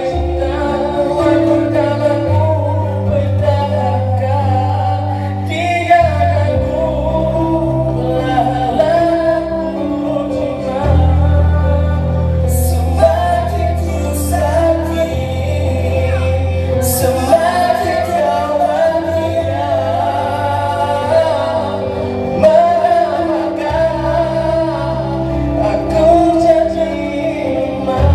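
A man singing a song into a handheld microphone over amplified backing music, with sustained bass notes changing every few seconds under the sung melody.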